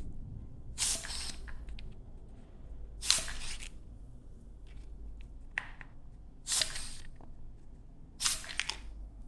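About five short hissing puffs of air from a hand syringe blown into screw holes, clearing debris and brake cleaner out of the threads.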